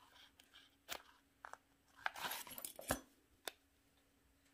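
A sheet of compressed gasket material being worked and torn down to shape around a small metal adapter plate: a few sharp clicks, then about a second of crackling and tearing, and one last click.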